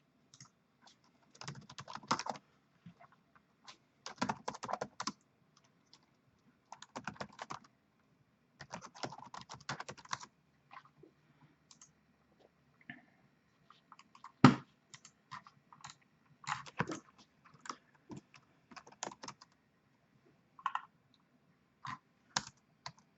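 Computer keyboard typing in short, irregular bursts of quick key clicks, with one louder single click about halfway through.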